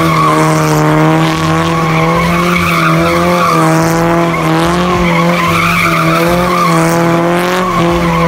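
A steady motor-vehicle engine drone, like a race car held at high revs, with a slightly wavering pitch and a rough, screechy edge above it.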